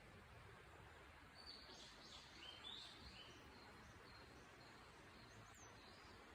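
Faint outdoor ambience with a few high bird chirps about one and a half to three seconds in, and one more falling note near the end.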